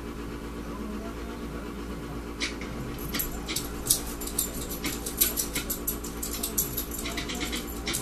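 Small pet parrot chirping while held and stroked in a hand: a rapid run of short, high squeaks and peeps that starts about two and a half seconds in, over a steady low hum.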